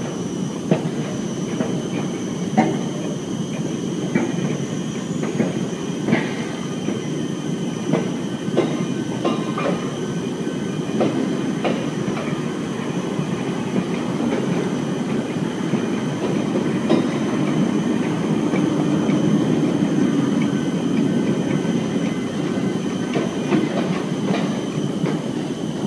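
Steady low rumbling noise with irregular sharp clicks and faint steady high-pitched tones; the rumble swells a little about two-thirds of the way through.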